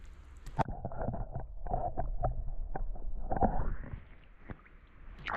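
Muffled water sloshing and a number of dull knocks from an action camera held at the surface of shallow creek water as a hand lets a bluegill go. The sound is dull, with no highs and a low rumble, and it goes quieter about four seconds in.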